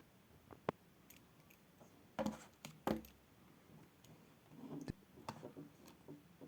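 Scattered small clicks and taps from handling a laptop screen panel and the clip on its display cable connector, about half a dozen spread irregularly.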